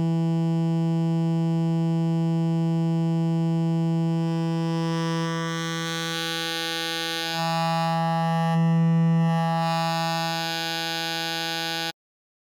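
Xfer Serum software synthesizer playing a stock wavetable: one held low note whose tone keeps changing as it plays, growing louder and brighter near 9 s, then cutting off suddenly near the end.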